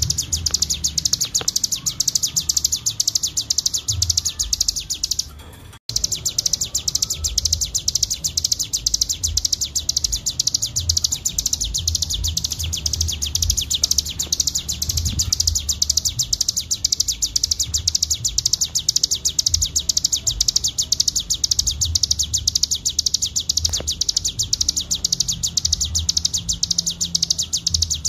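Ciblek gunung (hill prinia) singing a fast, unbroken chattering trill ('ngebren'), high-pitched and packed with rapid chirps. The song cuts out briefly about five seconds in, then resumes.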